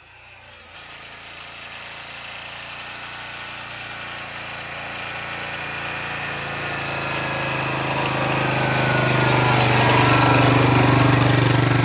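Yamaha Grizzly ATV's single-cylinder engine running steadily and growing louder as the quad approaches through snow and passes close by near the end, towing a drag of old tires.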